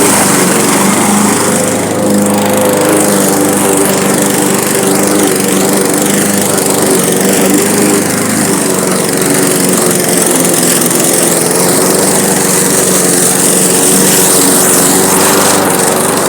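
Gas lawn mower engine running steadily under load while cutting grass.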